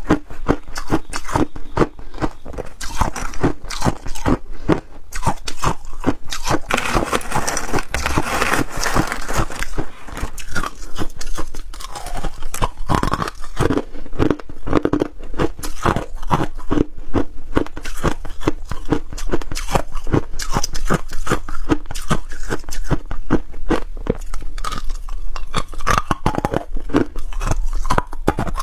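Hard ice chunks being bitten and chewed close to a clip-on microphone: a dense run of sharp, crackling crunches that keeps going.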